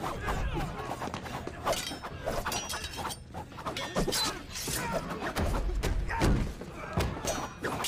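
Fight sound effects: a fast, unbroken run of blows and thuds with sharp metallic clanks and rings, as a lone fighter battles a crowd of armed men.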